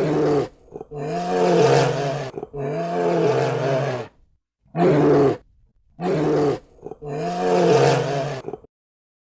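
A large animal roaring: six calls of half a second to a second and a half each, with short pauses between.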